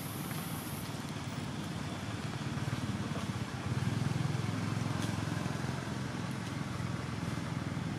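A motor vehicle engine running steadily, growing louder about four seconds in and then easing off.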